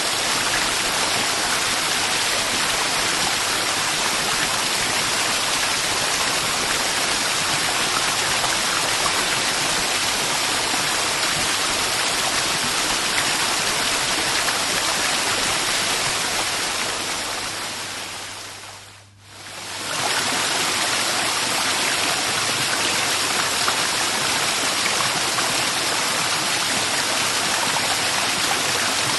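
Steady rushing of falling water from a waterfall. About two-thirds of the way through it fades away to almost nothing and swells straight back, like the join of a looped recording.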